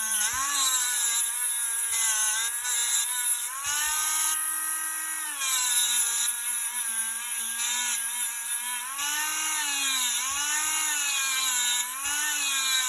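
Dremel rotary tool spinning a radial bristle wheel against soft-soldered jewelry, a steady whine whose pitch dips and recovers over and over as the wheel is worked over the metal. It is buffing off the white, scalded spots left by overheated solder.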